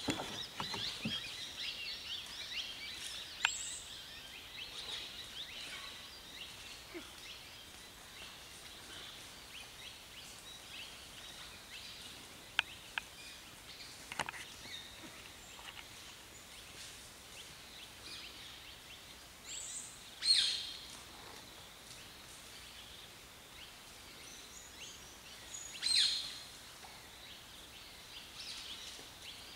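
Forest ambience with birds chirping, busiest in the first few seconds. Two louder sharp calls ring out about twenty seconds in and again some six seconds later, with a few faint clicks in between.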